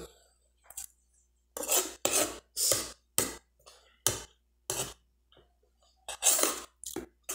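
Metal spoon scraping and clinking against a plate of couscous as food is scooped up, in a quick run of short scrapes.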